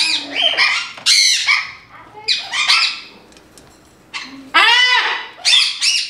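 Amazon parrot squawking: about six short, harsh calls in quick succession, with a brief pause a little past the middle.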